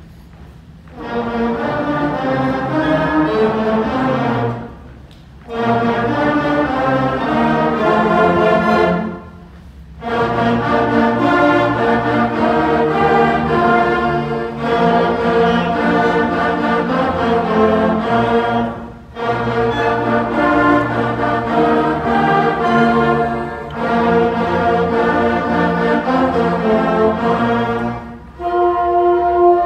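A large student concert band of woodwinds and brass, with flutes, clarinets, saxophones, euphoniums and tubas, playing a tune in phrases. The phrases are split by several brief breaks.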